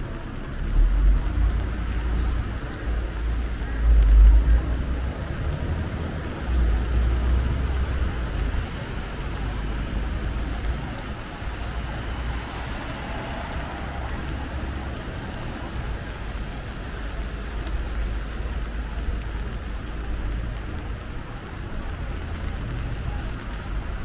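Rainy city street ambience: an even hiss of rain mixed with passing traffic. Heavy, irregular low rumbles come in the first several seconds, loudest about four seconds in, then settle into a steadier low rumble.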